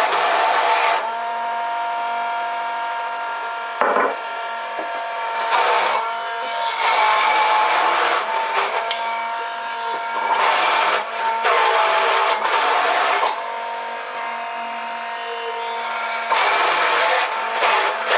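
Philips immersion blender's motor running steadily in a plastic jug of homemade mayonnaise, turning the already-emulsified egg and olive oil into a thick cream. The even motor tone gives way every couple of seconds to stretches of rougher, noisier churning from the blade.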